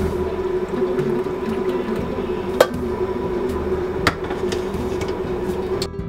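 Coffee pouring from a glass carafe into a ceramic mug, then two sharp clinks of the glass carafe knocking against the coffee maker as it is set back, about two and a half and four seconds in.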